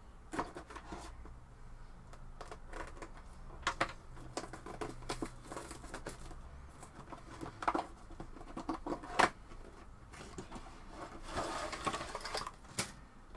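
Cardboard model box and plastic miniature sprues being handled: scattered rustling and scraping with sharp clicks as the box is opened and the plastic frames are slid out. The loudest click comes a little past nine seconds, and there is a longer burst of rustling shortly before the end.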